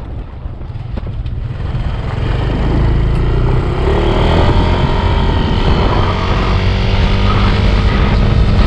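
Motorcycle or scooter engine running on the move, its pitch climbing as it speeds up about halfway through, under heavy wind rumble on the microphone.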